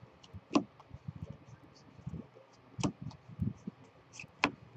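Baseball trading cards being handled and slid one by one off a hand-held stack, with soft rustling and three short sharp flicks about a second and a half apart.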